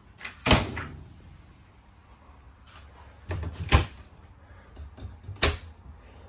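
Camper cupboard doors being opened and shut: three sharp clacks, about half a second in, near four seconds in with a few softer knocks just before it, and again past five seconds.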